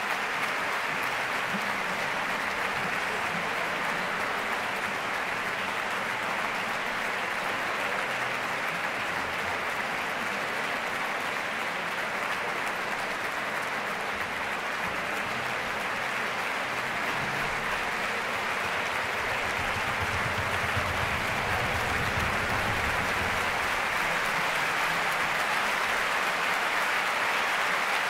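Concert audience applauding steadily after a symphony orchestra's performance, a dense, even clapping that grows a little louder about two-thirds of the way through.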